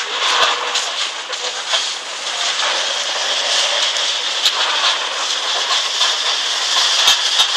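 Demolition excavators breaking up a concrete building: a steady hiss of machinery, with a few sharp cracks of breaking concrete and falling debris, two of them close together near the end.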